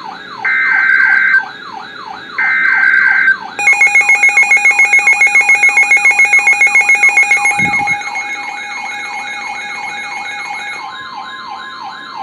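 Emergency Alert System broadcast: two short screeching data bursts of the SAME header, then a loud alert tone pulsing rapidly for about four seconds. Under it all a siren wails in quick falling sweeps, about three a second.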